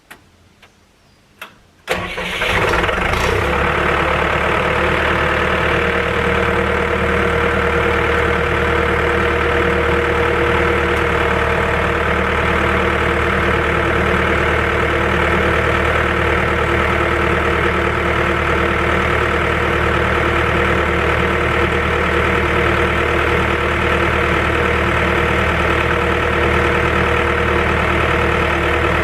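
Timberjack 1010B forwarder's diesel engine cranking and starting about two seconds in, then running steadily at idle.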